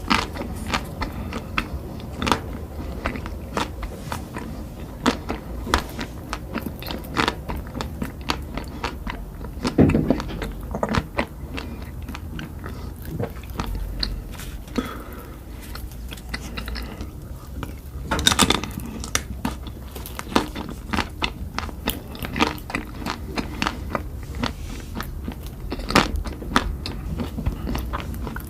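A person eating close to the microphone: irregular crunchy bites and chewing, with a few louder bites now and then.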